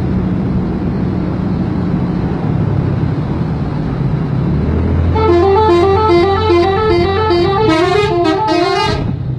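A vehicle engine rumbles steadily, then about five seconds in a telolet horn plays a quick multi-note tune, the notes stepping up and down for about four seconds before cutting off suddenly.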